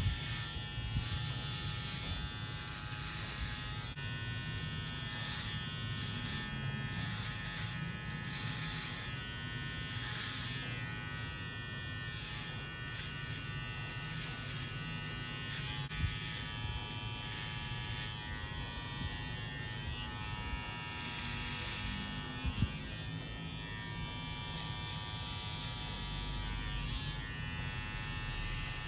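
Electric hair clipper buzzing steadily as it cuts hair in a low fade, with two brief knocks partway through.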